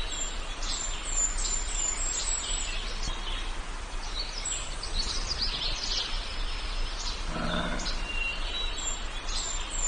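Woodland ambience of songbirds chirping and trilling in quick high phrases over a steady background hiss and low hum, with a short lower call about three quarters of the way through.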